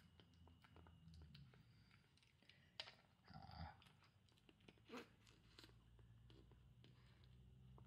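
A kitten faintly chewing dry kibble from a ceramic bowl: scattered small crunches and clicks, with two sharper ticks about three and five seconds in and a brief louder noise just after three seconds.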